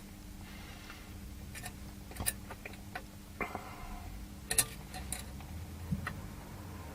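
Faint, irregular small clicks and taps of multimeter test probes and their handling on a power-supply circuit board during an in-circuit diode check, over a low steady hum.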